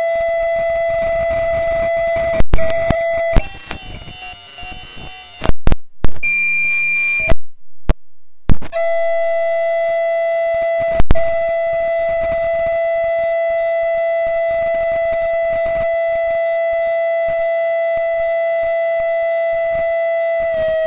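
Audio feedback: a steady howling tone with overtones. Between about two and nine seconds in it is broken by several loud pops and short dropouts and jumps to other pitches, then settles back to the same steady tone.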